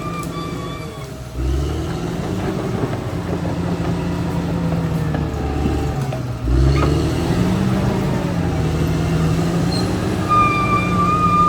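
Caterpillar D6R XL bulldozer's diesel engine working under load. Its pitch sags and climbs back twice, about a second in and again about six seconds in, each time with a low thump as it takes the load.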